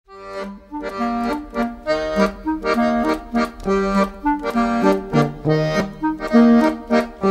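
Instrumental background music with a quick melody of short, bouncy notes, fading in over the first second.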